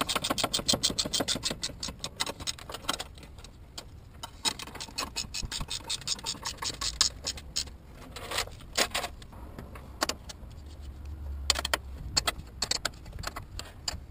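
Hand socket ratchet clicking in quick runs with short pauses between them, tightening the front suspension's caliper and control-arm bolts.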